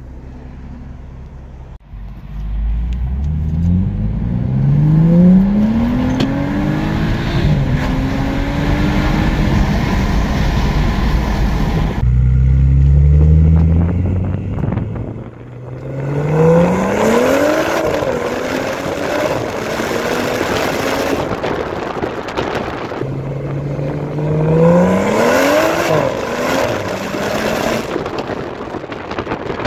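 BMW 435i's N55 turbocharged inline-six, with a catless downpipe ahead of the stock resonator and muffler, under hard acceleration. The engine note climbs in pitch and drops back at each upshift, in three separate pulls.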